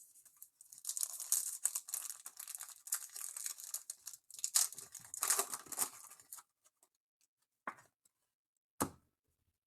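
Plastic trading-card pack wrapper being torn open and crinkled, a crackly rustle lasting several seconds, followed by two soft knocks near the end.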